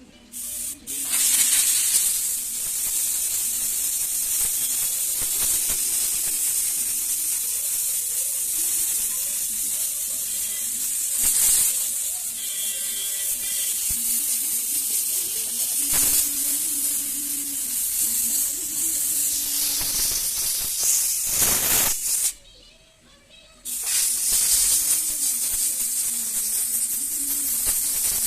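A pressurised jet hissing loudly and steadily. It stops for about a second about three-quarters of the way through, then starts again.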